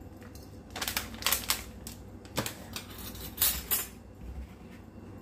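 Short bouts of crinkling and clicking as a plastic spice packet and a metal spoon are handled over a bowl while paprika is measured in. The sounds come in clusters about a second in, in the middle, and again after three seconds.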